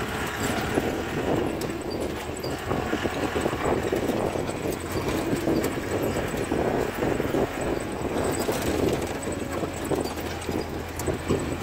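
CJ 550 jeep driving slowly over a rough dirt track: the engine running under a steady rattling and knocking of the body and fittings as it bounces over the ruts.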